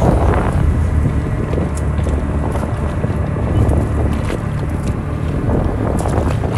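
A fishing boat's engine running steadily, with wind buffeting the microphone and a few light knocks.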